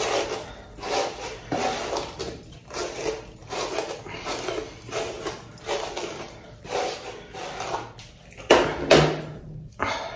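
A plastic detangling hairbrush pulled through long, wet, tangled hair close to the microphone: a rhythmic swishing of about two strokes a second, with two louder strokes near the end.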